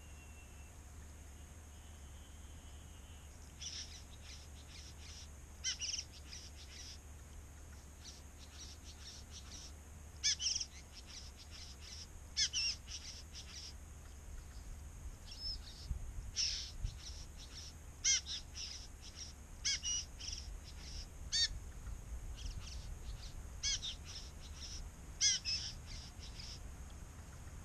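Male satin bowerbird's courtship display song: rapid runs of dry clicking, broken by louder, harsh buzzy calls every second or two, starting a few seconds in.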